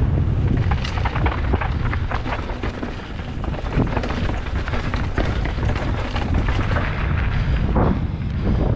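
Mountain bike rattling and clattering over a rocky, stone-paved trail section, with many quick sharp knocks. Wind buffets the helmet camera's microphone throughout as a steady low rumble.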